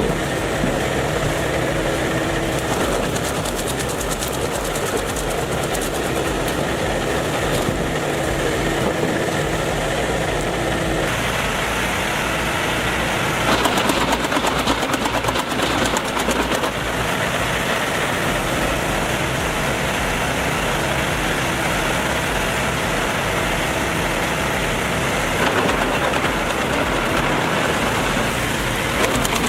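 Heavy machinery running steadily with engine noise. The sound changes character about eleven seconds in and grows louder for a few seconds around the middle.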